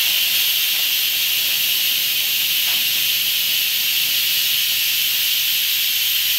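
Instant Pot electric pressure cooker venting steam through its pressure-release valve in a manual (quick) release after pressure cooking: a loud, steady, high hiss.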